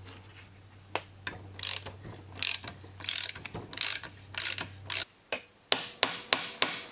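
Ratchet wrench clicking in short runs, one stroke after another about every two-thirds of a second, as it turns out the end-cap bolts of a Warn XD9000 winch motor. Near the end come a few sharp, separate metallic taps.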